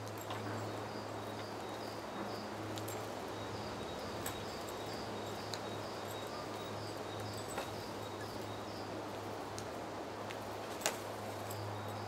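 Quiet ambience: a steady low hum under a run of short, high, evenly repeated chirps like a cricket's, which stops partway through and starts again near the end. A few faint clicks, the clearest one near the end.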